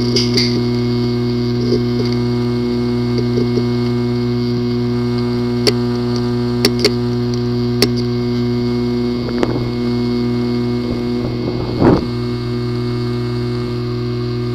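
Failing hard disk drive clicking: a handful of sharp clicks at irregular intervals over a steady hum, typical of a physically damaged disk assembly.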